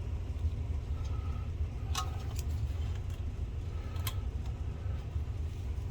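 A few light, sharp clicks of a screwdriver and small metal parts as a screw is worked out of a DLP projector's lens assembly, spaced a second or two apart over a steady low hum.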